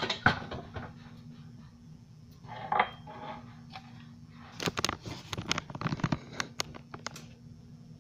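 Kitchenware being moved about on a countertop: scattered knocks and clinks, with a quick run of them about five to seven seconds in, over a faint steady hum.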